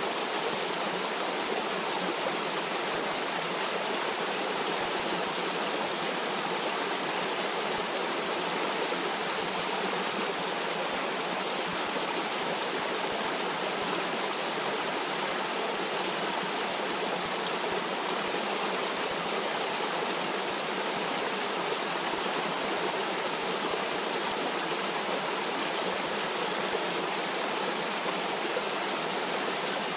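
Stream of water running steadily over rocks, an even rushing with no breaks or changes.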